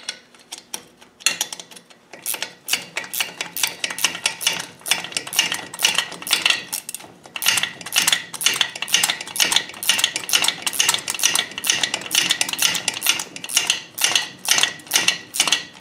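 Ratcheting spanner clicking rapidly as a nylon-insert lock nut is run down a clutch master cylinder mounting bolt on a Land Rover pedal box. The clicks are sparse at first and come thick and fast from about a second in.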